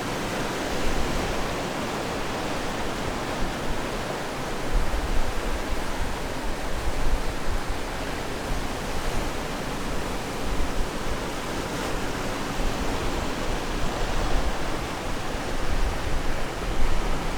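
Ocean surf washing on the shore: a steady rush of water, with low rumbles rising and falling every few seconds.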